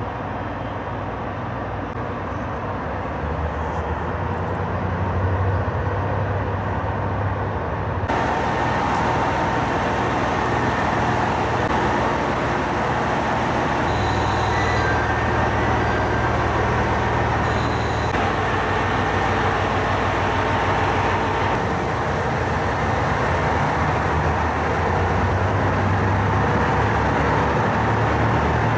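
Trains standing at a railway station platform, giving a steady mechanical hum with no distinct events.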